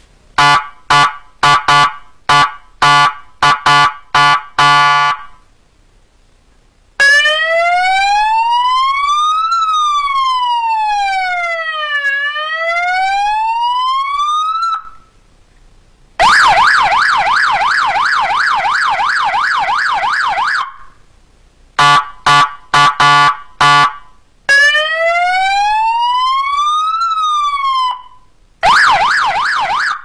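A 12 V, 30 W three-tone electronic siren horn on a motorcycle or car alarm, its push-button pad pressed to run through its tones. It gives a string of short horn blasts, then a slow wail gliding up and down, then a fast warbling yelp. Near the end it plays a few more short blasts, the wail again and a short burst of the yelp.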